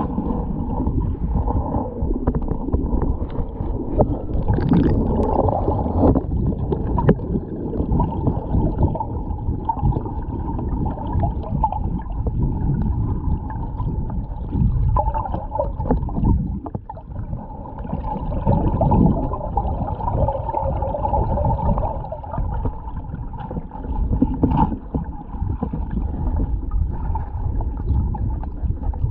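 Muffled sloshing and gurgling of shallow, wave-stirred fresh water heard from an underwater camera, dull and low-pitched, with a few short knocks.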